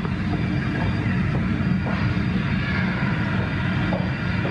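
Boeing 777-300ER's GE90 jet engines at taxi power, a steady low rumble with a faint higher whine above it.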